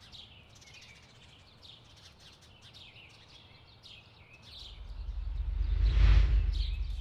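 Small birds chirping over a faint outdoor ambience. In the last few seconds a deep whoosh swells up, becomes the loudest sound, and fades away.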